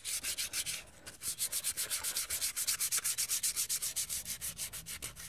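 120-grit sandpaper rubbed by hand over an alloy wheel in rapid back-and-forth strokes, a dry rasping hiss about seven or eight strokes a second, with a brief pause about a second in. The wheel's old lacquer and paint are being scuffed back ready for filler and primer.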